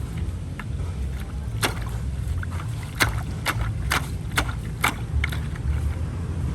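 A run of sharp clicks and knocks, about seven spread over four seconds, over a steady low rumble.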